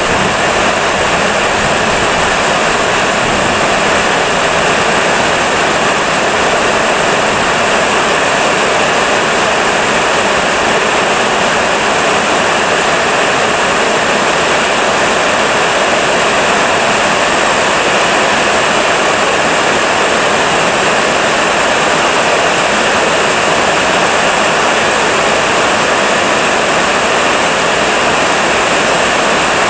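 Heavy rain pouring down steadily, a dense, even hiss with no let-up and no thunder.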